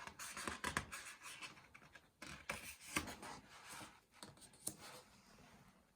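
Faint rustling and scratching of paper with a few small clicks: picture-book pages being handled and turned.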